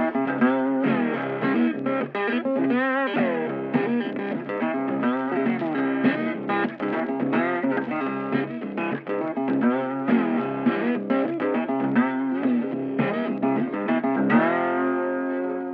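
Outro music: electric guitar playing a lead line with bent, wavering notes over a steady bass, ending on a held chord near the end that rings out.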